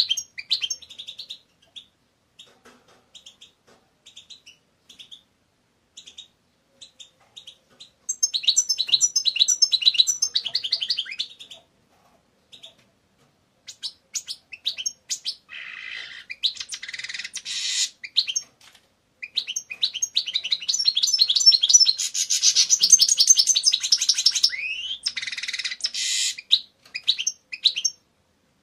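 European goldfinch singing: phrases of fast, high twittering notes, broken by scattered single notes, with one bout a few seconds in, another in the middle, and the longest filling most of the last third.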